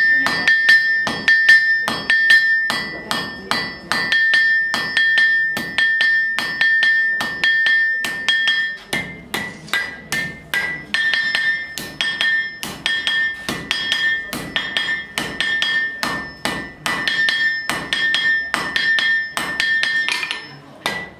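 Blacksmith's hand hammer striking red-hot iron on an anvil in a steady rhythm of about two to three blows a second, each blow ringing the anvil with a clear metallic tone. This is the forging of a horseshoe from a straight iron bar.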